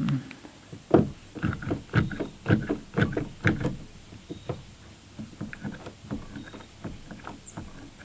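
Irregular wooden knocks and clunks from boards and a clamp being handled and set on a plywood sheet, heaviest in the first few seconds, then lighter taps.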